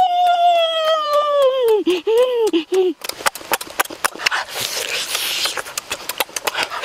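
A child's long, high-pitched vocal cry of relish, held and then falling off, followed by three short calls. After that come wet lip-smacking, sucking and chewing clicks as he eats braised pig-leg skin.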